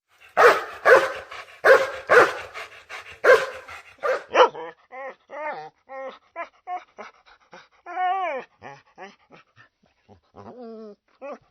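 A dog barks loudly about seven times over the first four seconds, then turns to a run of high-pitched whines and whimpers, with one longer drawn-out whine about eight seconds in.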